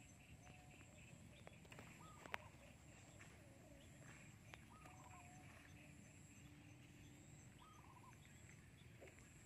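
Faint outdoor quiet with a bird repeating a short arched call about every three seconds, and a single sharp click about two seconds in.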